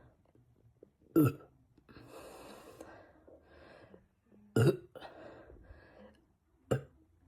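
A man belching three short times, the first two loudest and the last a little quieter: soda burps from carbonated Coke. Softer breathy noise comes between the burps.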